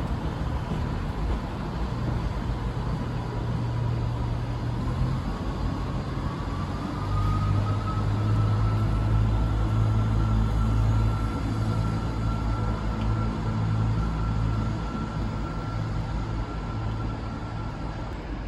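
Diesel train engine running with a steady low hum that grows louder about seven seconds in, while a thin whine glides up in pitch and then holds.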